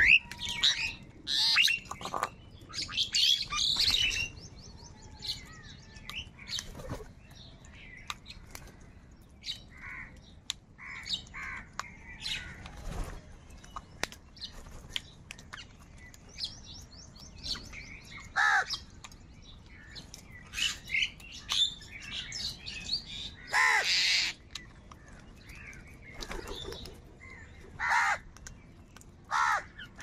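A flock of house crows cawing on and off, with harsh calls coming in clusters. The loudest calls come in the first few seconds and again about two-thirds of the way through.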